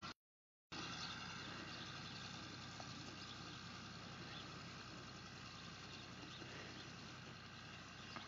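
Faint, steady background noise of an open field, with a brief cut to total silence just after the start.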